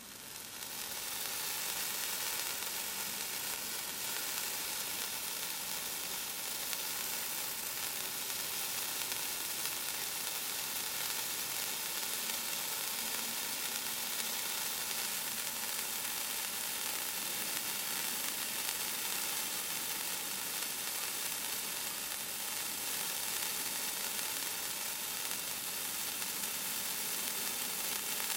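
Shiny Star SH3202 Straw Sparks handheld spark-stick fountain burning with a steady hiss of spraying sparks. The hiss builds up over the first second or two as it catches, then holds even.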